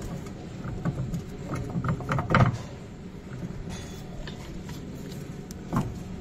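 A run of short metallic clicks and knocks, the heaviest about two and a half seconds in, with one more knock near the end: front drivetrain parts of a Polaris Ranger being handled by a gloved hand.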